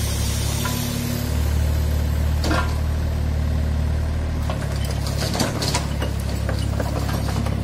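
Mini excavator's diesel engine running, rising in pitch under hydraulic load about a second in and dropping back about four and a half seconds in, while its steel tracks and frame clank and rattle as it drives down off the truck bed.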